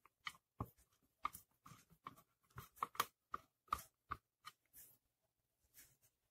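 Hand screwdriver driving a screw, with a washer under it, into the plastic housing of a steam iron: a run of faint, irregular clicks and ticks, about three a second, thinning out about five seconds in.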